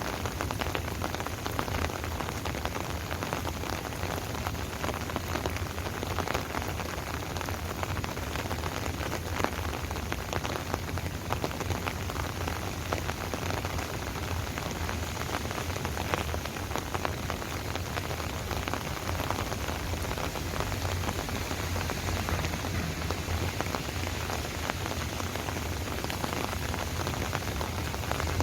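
Steady rain falling, with a dense patter of separate drops striking a surface.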